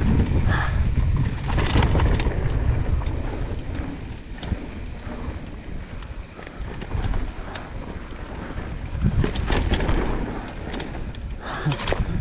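Mountain bike descending a dirt trail: wind buffeting the camera's microphone and tyre rumble, with frequent sharp clicks and rattles from the bike over rough ground. Loudest in the first few seconds and again around nine to ten seconds in.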